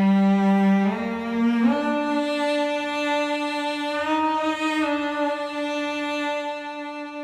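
Intro music: slow bowed-string notes, a cello-like low line that steps up in pitch twice in the first two seconds and then holds, with slight pitch changes near the middle.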